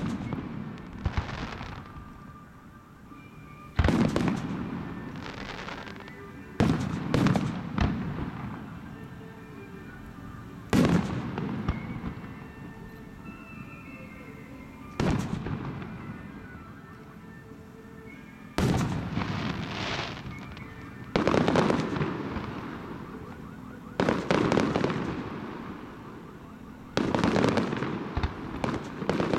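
Aerial firework shells bursting: a loud boom every few seconds, sometimes two or three in quick succession, each trailing off in a fading crackle and rumble.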